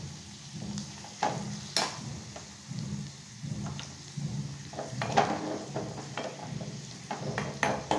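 Cashews and raisins frying in ghee in a metal kadai, sizzling steadily, while a metal ladle stirs them and scrapes and clinks against the pan several times.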